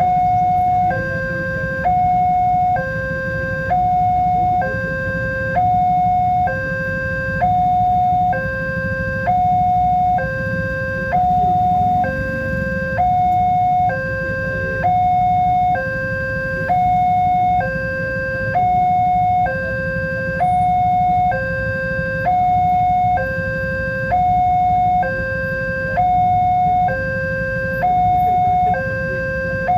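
Electronic two-tone warning alarm of an Indonesian railway level crossing, switching evenly between a higher and a lower note about every three-quarters of a second, over a steady low rumble.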